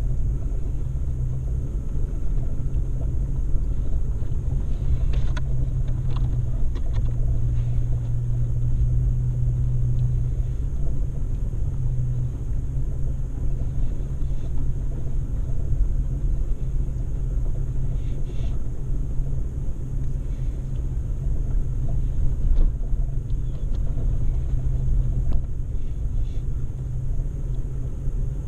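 Off-road vehicle's engine running steadily while driving a rough dirt track, a continuous low drone with a few scattered knocks and rattles.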